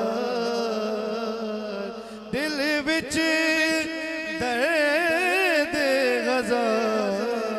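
A man singing a naat through a microphone: a long held note, then from about two seconds in wavering, ornamented runs sung higher up.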